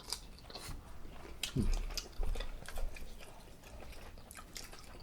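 Close-up chewing of turkey sausage: scattered mouth clicks and smacks at an irregular pace.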